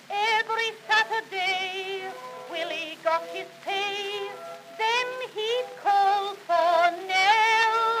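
A woman singing with strong vibrato to a small orchestra, on a 1909 Edison four-minute cylinder recording, with the thin, bass-less sound of an acoustic recording.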